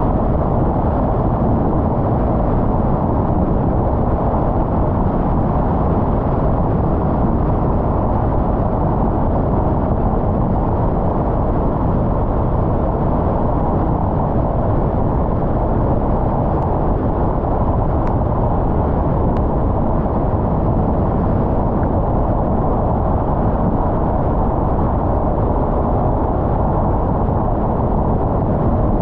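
Steady road and engine rumble of a car driving along, even and unchanging throughout.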